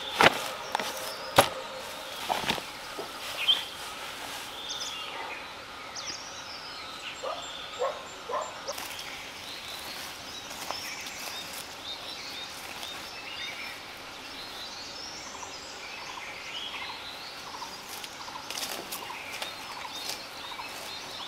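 Birds calling and singing in wild scrub forest, many short chirps and warbles over a steady faint outdoor hiss. A few sharp knocks sound in the first few seconds.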